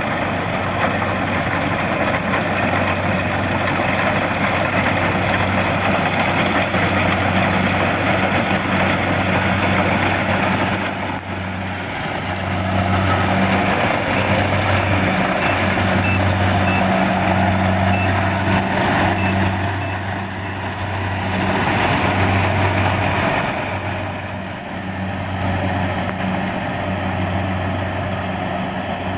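Kubota DC-70 Plus combine harvester running under load while harvesting rice: a steady diesel engine hum with the rushing clatter of the cutting and threshing machinery. There are a few faint high beeps about halfway through.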